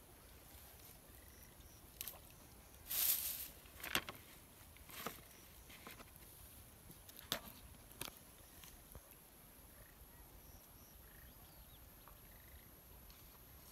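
Quiet outdoor background broken by a handful of brief rustles and sharp clicks between about two and eight seconds in, the loudest a half-second rustle about three seconds in: handling noise from a plastic bucket and small container among dry grass.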